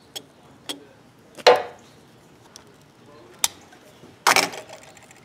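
Sharp clicks and snaps of a utility knife cutting through the insulation of a heavy red battery cable. The loudest snap comes about one and a half seconds in, and a longer burst of noise a little past four seconds.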